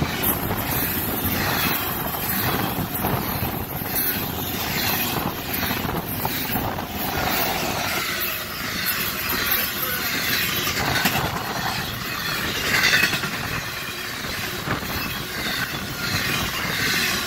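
Doublestack container freight train passing close at speed: a steady rumble and clatter of steel wheels on the rails, with a locomotive in the train going by about eight seconds in.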